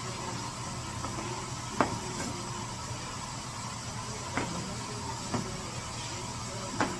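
Rice-cake shop kitchen work: a steady hum and hiss with four sharp knocks at uneven intervals.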